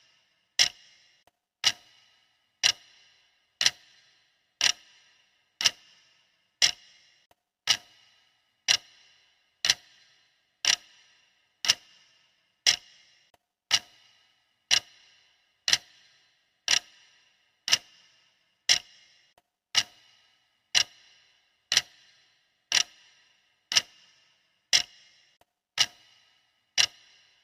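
Clock ticking steadily for a countdown timer, one sharp tick a second, each with a short bright ring.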